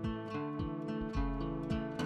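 Background music: acoustic guitar playing, plucked and strummed notes over a bass line.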